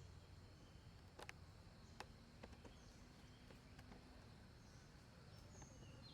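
Faint outdoor ambience, near silent, with a handful of soft sharp clicks about one to three seconds in and faint short high bird chirps.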